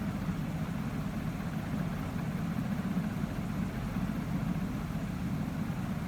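Steady low hum of background machinery, unchanging throughout, with no other sound standing out.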